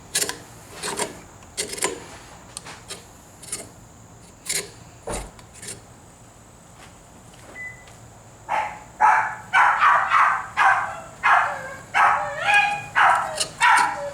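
Scattered light scrapes and clicks of handwork on the handlebar, then, from about eight seconds in, a dog barking repeatedly, about two loud barks a second.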